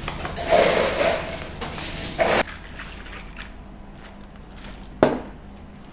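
Liquid poured into a plastic bag packed with ice, a dense splashing pour that cuts off suddenly about two and a half seconds in. A single sharp knock follows about five seconds in.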